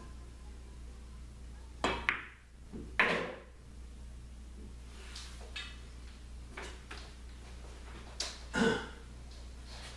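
Pool balls clacking on a pool table: a sharp cue-ball strike about two seconds in, then a louder ball-on-ball knock with a short rolling rattle. Lighter clicks follow, and there is another pair of knocks near the end.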